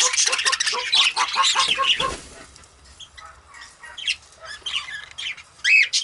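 A flock of budgerigars chattering and warbling, busy for the first two seconds, then thinning to scattered chirps with one sharp rising chirp near the end.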